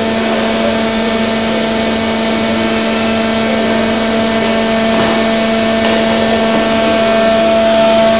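Roundo PAS 360 section bending machine running as its rolls bend a steel bar into an arc: a steady mechanical hum with constant tones, and a couple of faint ticks about five and six seconds in.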